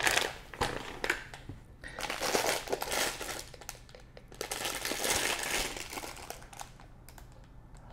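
A clear plastic bag of chocolates crinkling as it is picked up and handled, in two spells of rustling, with a few light knocks in the first second.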